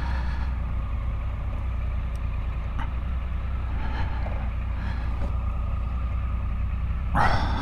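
Triumph Tiger 1050's three-cylinder engine running at low revs as the bike moves slowly at walking pace, a steady low hum.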